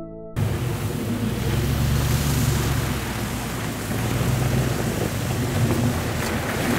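First-generation Toyota Sequoia's 4.7-litre V8 running at low speed as the SUV drives slowly down a snow-covered trail toward the microphone. A low, steady engine hum sits under a constant rushing hiss.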